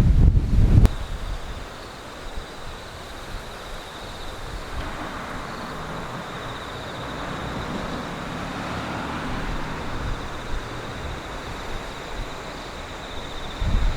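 Wind buffeting the microphone for about the first second, then a steady rushing noise with a vehicle passing, swelling in the middle and fading away; the wind buffeting returns near the end.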